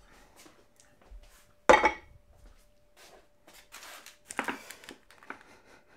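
Crockery and kitchen utensils handled on a wooden worktop: one sharp knock a little under two seconds in, then a cluster of clinks and knocks near the end.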